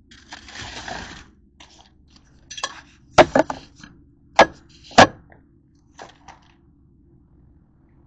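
Kitchenware clattering: a short scraping rustle, then a handful of sharp knocks and clinks, the loudest three spread over about two seconds in the middle.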